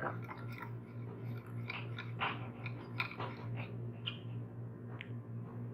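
A spoon stirring yeast and sugar into warm water in a bowl: light, irregular taps and scrapes against the bowl.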